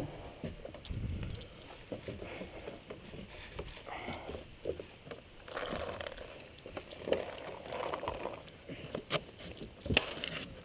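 Knocks, footfalls and rustling of a person climbing a wooden ladder up into a tree house and grabbing the wooden slats, with a sharp knock near the end.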